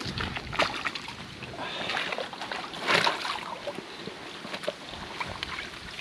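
Water sloshing and splashing at the lake edge as a small carp is lowered into the water and released, with a louder splash about three seconds in.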